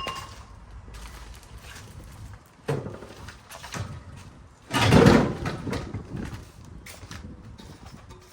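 Handling and knocking noises from site work: a sharp metallic clank with a brief ring at the start, scattered knocks, and a louder rushing clatter lasting about half a second around five seconds in.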